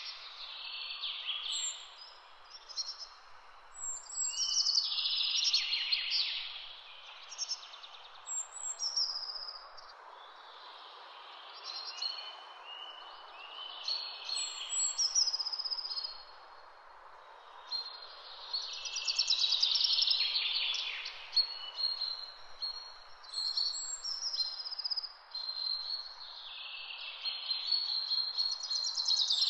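Woodland songbirds singing: song phrases of quick trills and high whistled notes every few seconds, over a steady low hiss.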